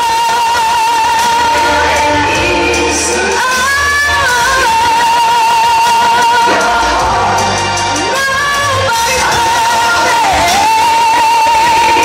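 A woman singing through a microphone over amplified backing music, holding long high notes with a wavering vibrato and a few brief climbs in pitch.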